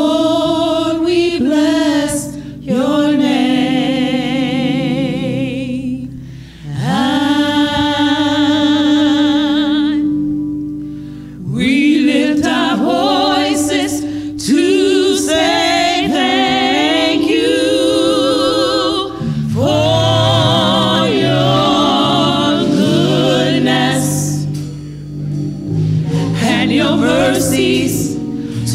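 Small female gospel vocal group singing into microphones: long held notes with vibrato in phrases with short breaks between them, over a low sustained accompaniment.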